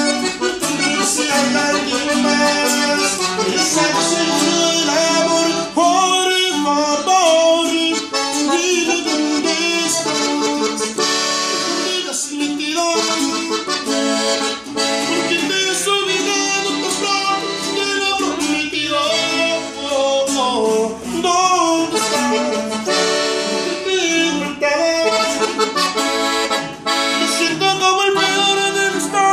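Button accordion played solo: a continuous melody over chords, with the notes changing quickly.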